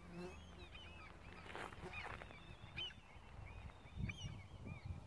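Many birds calling in short, quick chirps that rise and fall, scattered throughout, over a low rumble with a few dull thumps near the end.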